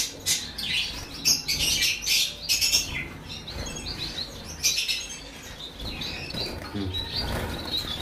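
Caged finches chirping and fluttering in short bursts, busiest in the first three seconds.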